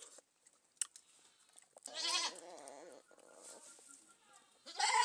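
A goat bleating: a wavering call about two seconds in, and a louder one at the very end.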